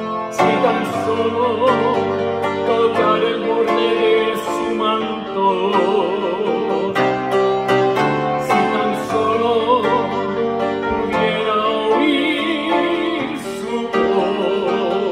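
A man singing with vibrato, accompanying himself on a grand piano.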